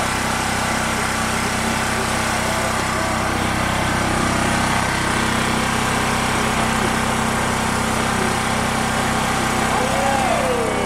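Small portable generator engine, fuelled by propane, running steadily with an even drone while it powers a string of lights.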